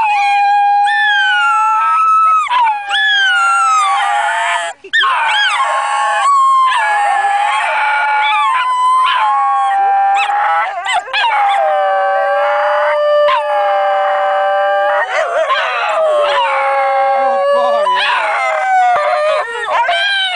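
Basenjis yodelling: long, wavering, pitched howls that glide up and down and are held a second or more at a time, with brief breaks between cries. The dogs are singing along to a Mr Whippy ice-cream van's jingle.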